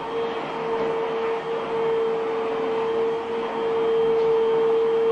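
Canister vacuum cleaner running steadily: a constant high-pitched motor whine over the rush of sucked air as the nozzle is drawn over a dog's coat.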